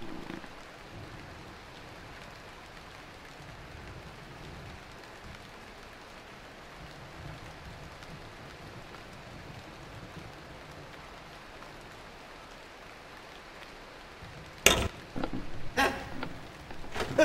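Steady rain ambience. About fifteen seconds in comes a sudden loud crack, the loudest sound here, followed by a few more sharp knocks.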